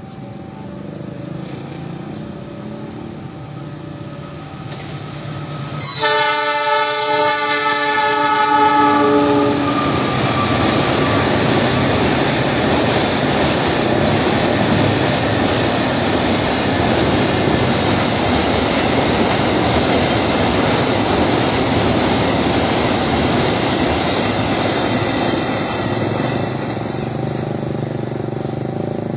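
A diesel locomotive's horn sounds suddenly and loudly about six seconds in, a chord of several notes held for a few seconds. A container freight train then passes close by with a steady loud rush of wheels running over the rails, easing off near the end.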